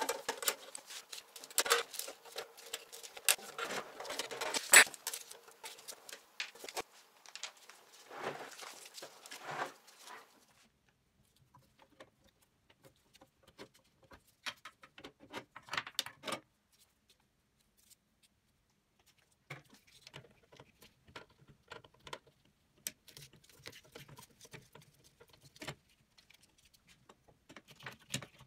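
Small metal handling noises as parts of a sheet-metal shashlik maker are worked on with a screwdriver: scattered clicks, clinks and scrapes. These are busiest over the first ten seconds, then after a quiet stretch in the middle come back more sparsely.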